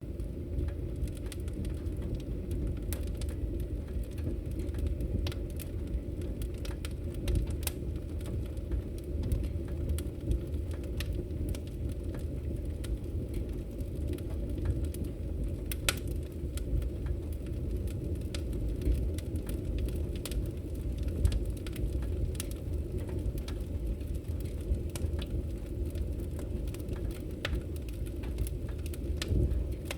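Firewood burning in a fireplace: a steady low rumble of flame with irregular sharp crackles and pops.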